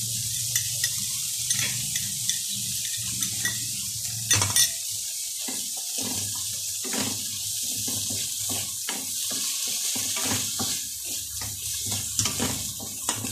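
Wooden spatula scraping and knocking against a wok as diced bell peppers and tomato sauce are stir-fried, over a steady frying hiss; chopsticks clack against a second pan. The knocks come irregularly throughout, the loudest a little over four seconds in.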